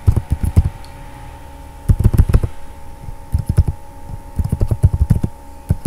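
Computer keyboard typing in short runs of quick keystrokes with pauses between them, over a faint steady hum.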